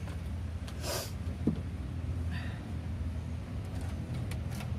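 A wooden board handled and rubbed by hand: a brief scrape about a second in, then a couple of light knocks and a short rasp. Under it runs a steady low motor-like rumble.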